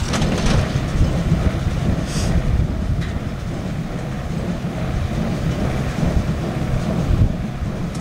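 John Deere 6300 diesel tractor and John Deere 328 small square baler running steadily while baling hay, under a heavy low rumble of wind on the microphone.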